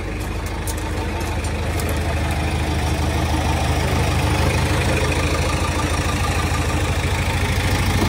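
Backhoe loader's diesel engine idling, a steady low rumble that grows slightly louder over the seconds.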